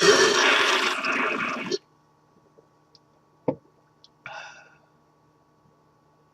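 Loud slurp of soda pop sucked from a can, lasting under two seconds and stopping abruptly. About three and a half seconds in comes a single short click, then a brief breathy sound.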